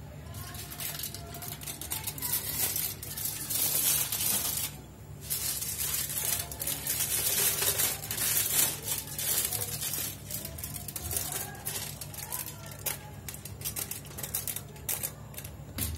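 Aluminium foil crinkling and rustling as it is lifted, folded and peeled by hand, in irregular bursts of crackle with a short lull about five seconds in.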